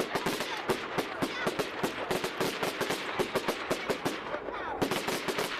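Fireworks going off in a rapid, dense barrage of crackling bangs, several a second, with a brief thinning a little over four seconds in.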